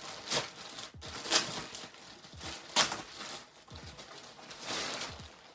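Plastic packaging crinkling and rustling as a backpack is handled and pulled out of its wrapping, with irregular sharp crackles, the loudest about a second and a half and nearly three seconds in.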